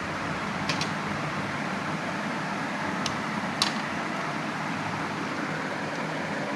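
Steady hiss of a room fan or air conditioner, with three or four small sharp clicks as the plastic front bezel of a laptop DVD drive is pried loose.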